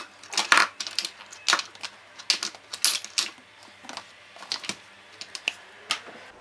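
Spice jars and plastic tubs clacking as they are set down one after another into a plastic storage basket: quick, irregular knocks and clicks, several a second.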